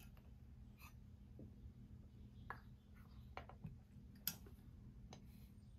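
Faint clicks and taps as a diecast model airliner is shifted and settled on its display stand, with one sharper click a little past four seconds in.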